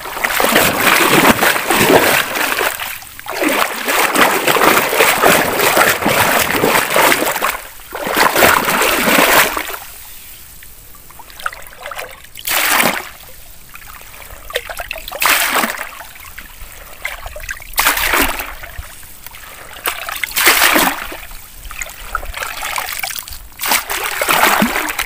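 A round hand net churning and splashing through shallow muddy pond water, continuous for about the first nine seconds. After that it goes quieter, with water trickling and separate splashes every two to three seconds as the net is lifted full of weeds and dipped again.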